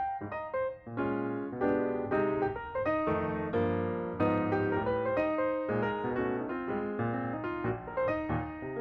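Background piano music: chords and a melody of struck notes.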